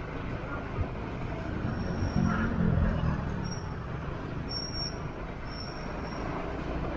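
Motorbike traffic heard while riding along: a steady mix of engine noise and rushing air, with a louder passing vehicle swelling about two seconds in. A few short, high-pitched beeps sound over it.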